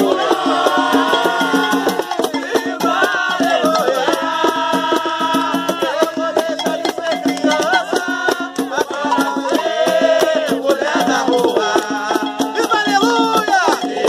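Umbanda ponto sung by a group of voices over hand-struck atabaque drums, with a rattling shaker.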